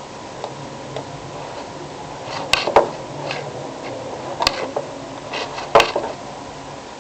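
A handful of sharp clicks and clatters in the middle few seconds, the loudest two about three seconds apart, over a steady electrical hum.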